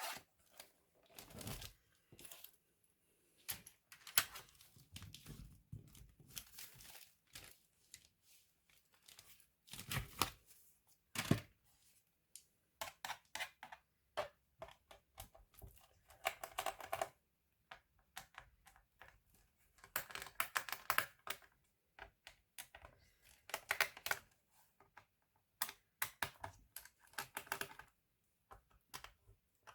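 Irregular small clicks, taps and short scrapes of hands and tools working on a laptop's plastic casing, with two louder knocks about a third of the way in.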